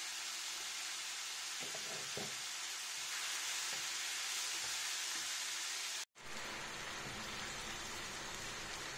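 Minced pork sizzling steadily in a non-stick frying pan while a spatula stirs it. The sound cuts out for an instant about six seconds in.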